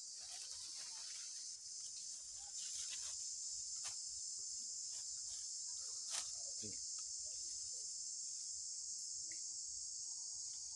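Steady high-pitched chorus of forest insects, a dense even buzz that thickens about two and a half seconds in, with a few faint clicks on top.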